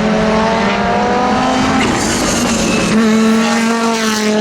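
Audi Quattro S1 rally car engine under hard acceleration, revs climbing steadily. It breaks off briefly about two seconds in, as at a gear change or lift, then comes back and holds high revs.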